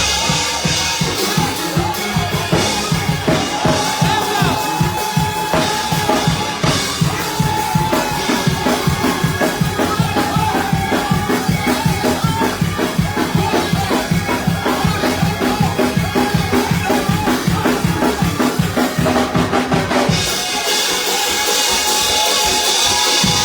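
Upbeat church band music: a drum kit with bass drum and snare keeps a fast, even beat of about four hits a second under sustained keyboard-like chords. About 20 seconds in the drums drop out and the chords carry on alone.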